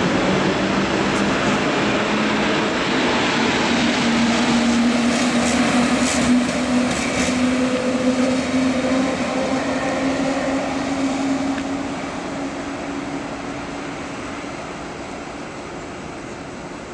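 Electric-hauled S-Bahn train of double-deck coaches pulling away, with rail and wheel noise and a motor hum that rises slightly in pitch. It fades steadily from about twelve seconds in as the train draws off.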